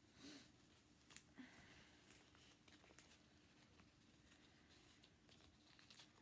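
Near silence, with a few faint clicks and rustles of a small plastic case and its contents being handled and packed away.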